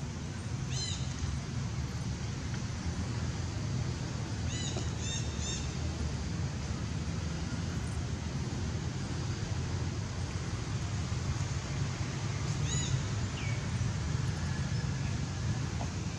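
Infant long-tailed macaque giving short high squeaks: one about a second in, three quick ones around the middle, and one more near the end, over a steady low background rumble.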